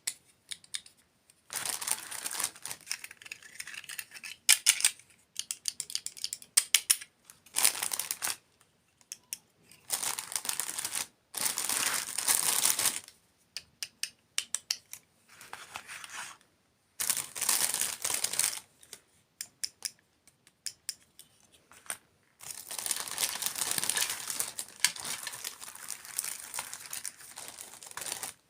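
Close-miked ASMR crunching and crinkling, in bursts of one to three seconds with dead silent gaps between them.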